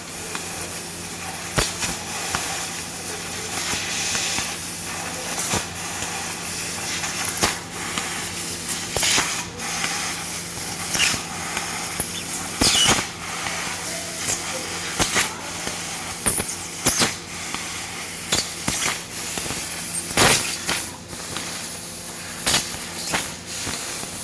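Fiber laser cutting machine cutting butterfly shapes: a steady hiss over a low hum, broken by sharp cracks every second or two.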